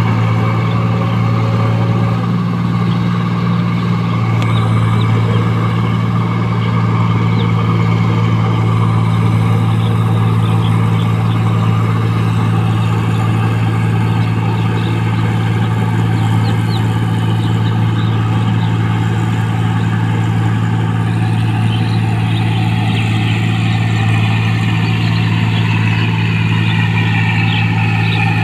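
New Holland 1545 combine harvester running steadily as it harvests rice: a constant, loud, low engine drone with the machine's working hum above it.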